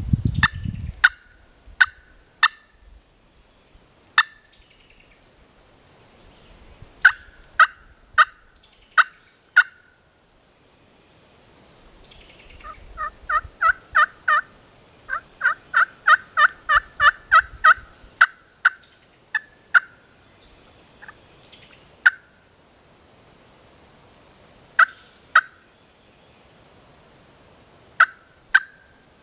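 Turkey call sounding hen turkey clucks and yelps: scattered single sharp notes, then a quick run of about a dozen yelps in the middle, then a few more spaced notes near the end. Blind calling to draw in a gobbler.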